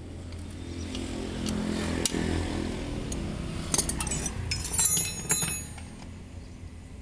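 A motor vehicle's engine running in the background, swelling for a couple of seconds early on, under a steady low hum. Sharp metal clinks of steel engine parts and tools being handled on the stripped engine block, loudest a little after halfway.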